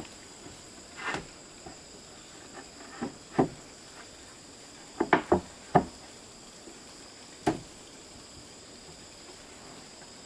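Irregular wooden knocks and clatters, a few single ones and a quick cluster of four about five seconds in, as boards are handled for a wooden floor. A steady high insect drone runs underneath.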